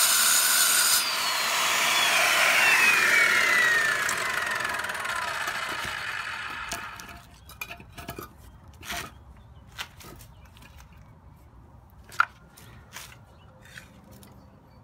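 Craftsman circular saw with a blade cutting lava rock, giving a loud gritty hiss. About a second in the trigger is let go, and the blade's whine falls steadily in pitch as it spins down over several seconds. After that, scattered knocks and clicks come as the cut rock is handled between concrete blocks.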